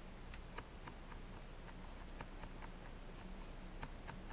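Faint, irregular clicks of a Nikon Coolpix B700's control dial being turned step by step, each detent a light tick as the shutter speed changes.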